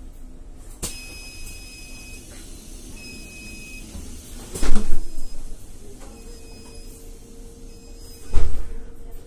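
Passenger door of a Zhongtong LCK6126EVG electric city bus working at a stop: a high warning tone beeps on and off several times, and the door mechanism gives two loud clunks, about four and a half and eight and a half seconds in.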